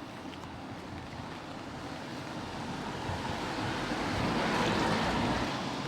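Heavy rain falling, a steady hiss of noise that swells louder through the middle and eases a little near the end.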